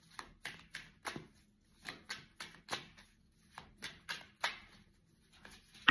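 Tarot cards being shuffled and handled: a string of short, irregular card slaps and flicks, about two to three a second.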